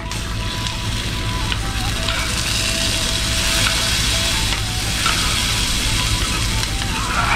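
Chopped coconut pieces sizzling steadily in hot ghee in a pan, fried to a brown colour.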